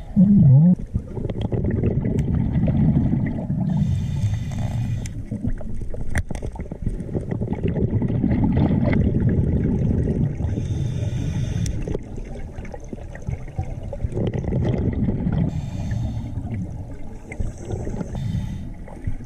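Scuba diver breathing through a regulator underwater: a brief hiss on each inhale, then a low bubbling rumble of exhaled air, repeating every few seconds.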